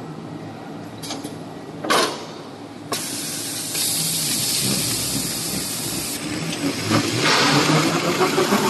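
Automatic stretch film rewinding machine running, with a click and then a sharp knock in the first two seconds, followed from about three seconds in by a loud, steady hiss that grows louder near the end.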